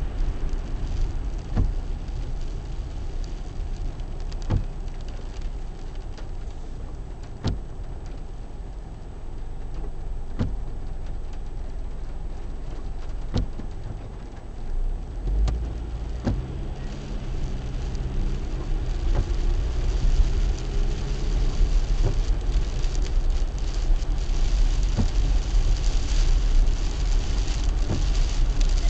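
Car driving on a wet road in rain: steady tyre and road noise, with windscreen wipers knocking about every second and a half. About halfway through, the engine note comes up with a rising tone as the car speeds up, and the road noise grows louder.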